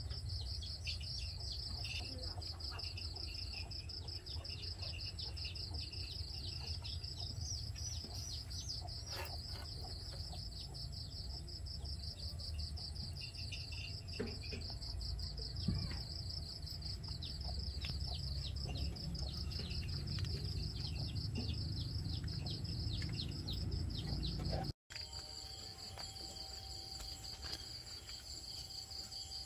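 Crickets trilling steadily, a constant fast-pulsing high chirr, over a low rumbling background. The sound cuts out for an instant near the end and then carries on.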